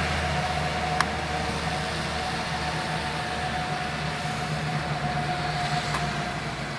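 Fire engine turntable ladder truck driving away, its diesel engine a steady low rumble that slowly fades. A short click about a second in.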